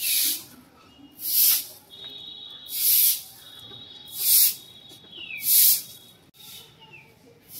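A long-handled broom sweeping hedge clippings across a brick-paved path: one swish per stroke, about five strokes roughly a second and a half apart.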